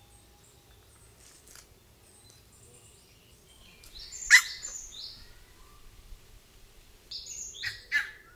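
Birds calling: one loud, short, harsh call about four seconds in, then a few quick high calls near the end, over faint outdoor background.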